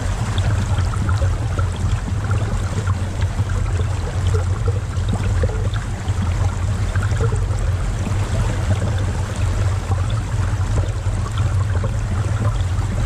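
Creek water running and trickling, over a steady low rumble.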